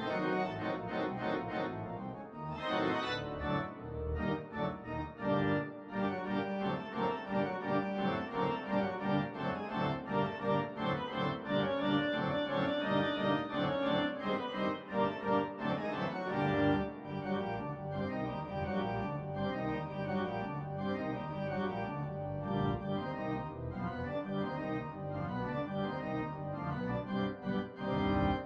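Instrumental music with many sustained tones over a quick, steady pulse: a musical accompaniment to a silent cartoon.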